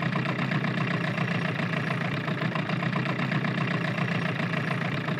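Boat motor running steadily at trolling speed, a low even hum.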